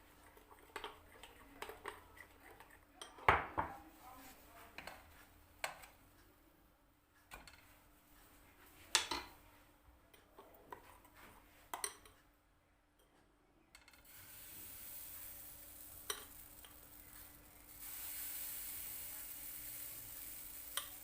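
Scattered clinks and knocks of a spoon and dishes, the loudest a sharp knock about three seconds in. About two-thirds of the way through, a steady sizzle of pancake batter frying in a hot pan begins and grows louder near the end.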